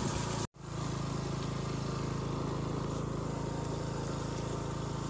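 Motorcycle engine running steadily at an even pace while the bike rides along, with a short total dropout about half a second in.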